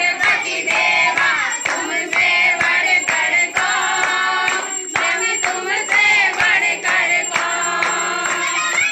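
A crowd of devotees singing a devotional chant together, with hand-clapping in time at about two claps a second.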